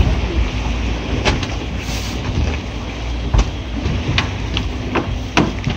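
Boat engine running with a steady low rumble, over which come about half a dozen scattered sharp knocks.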